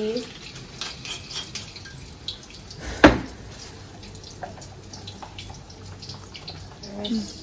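Kitchen sounds: light scattered ticks and drips, with one loud sharp knock about three seconds in.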